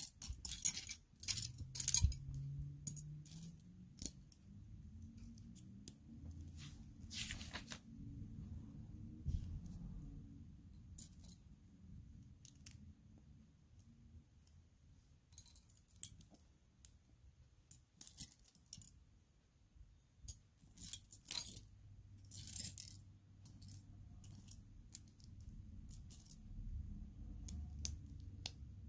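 Small plastic Lego pieces being handled: irregular clicks, clinks and rattles, with a few short rustles.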